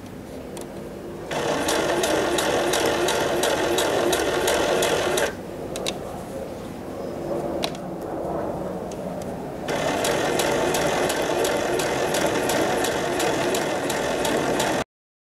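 Electric sewing machine stitching through fabric with a rapid, even clatter of the needle, in two runs of about four and five seconds with a quieter pause between. The sound cuts off suddenly near the end.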